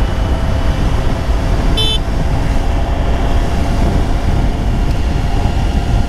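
Triumph Tiger 900 motorcycle under way: steady engine and wind rush. A short high-pitched horn toot about two seconds in.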